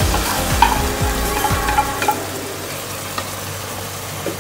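Parboiled beef pieces frying in hot oil with garlic and onion in a metal pot, sizzling steadily while a wooden spoon stirs them, with scattered clicks and scrapes of the spoon against the pot. The sizzle eases a little about two seconds in.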